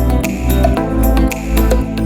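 Background music: a mellow instrumental track with guitar over a steady beat.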